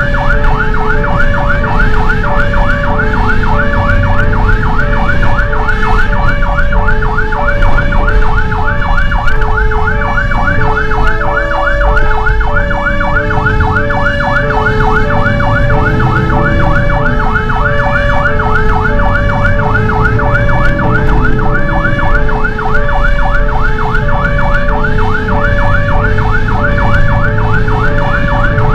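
Fire engine siren sounding on the way to a call: a two-note hi-lo tone switching about once a second, layered with a fast rising-and-falling yelp that repeats several times a second. The truck's engine rumbles underneath.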